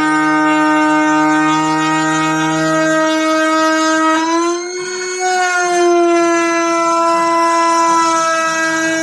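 CNC router spindle running with a steady high whine, its pitch wavering and shifting briefly about four to five seconds in as the cutting load changes.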